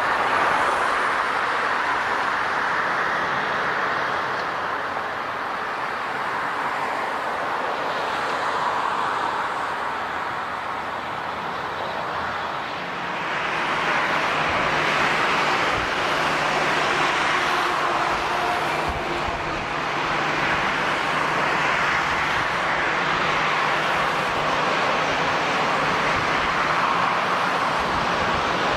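Jet airliner engines: a steady rushing roar that swells a little about halfway through.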